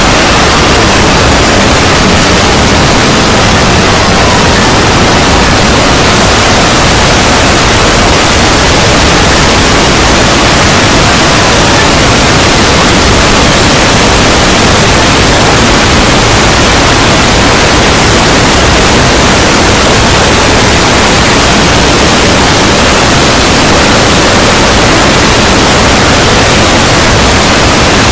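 Loud, steady static hiss spread evenly across all pitches, a synthetic 'void' sound effect, with faint wavering tones under it in the first few seconds.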